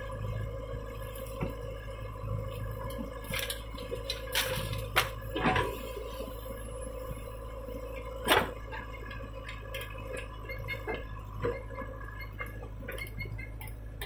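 JCB 3DX backhoe loader's diesel engine running steadily under hydraulic load while the backhoe digs and loads soil. Several sharp knocks and clanks ring out over it, loudest from about four to five and a half seconds in and again just after eight seconds.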